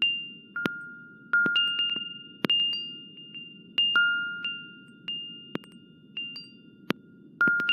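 Synthesized chime tones from the Tree Tone software instrument: irregular struck pings at two pitches, one an octave above the other, each ringing out and fading, with sharp clicks between them. Beneath them runs a steady low noise bed from the device's noise setting.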